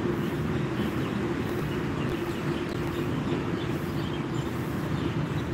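Steady low rumble of road traffic, with one steady engine hum running under it.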